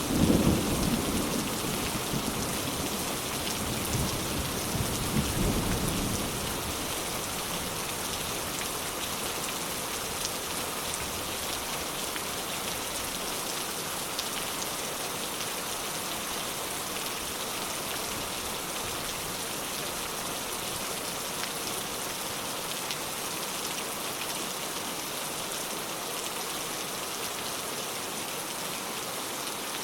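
Steady rain hissing, with a low rumble of thunder at the start that fades away over the first six seconds or so.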